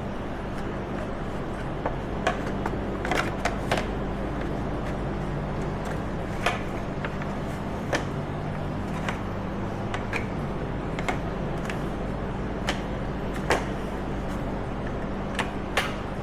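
ATV parts and hardware being handled and fitted by hand: scattered light clicks and knocks, over a steady low hum.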